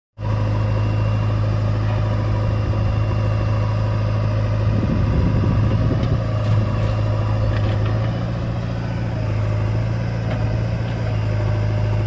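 Diesel engines of a JCB 3DX backhoe loader and a Swaraj 735 FE tractor running steadily with a deep hum while the backhoe loads soil into the tractor's trolley; the engine note shifts slightly about five and again about eight seconds in as the backhoe works.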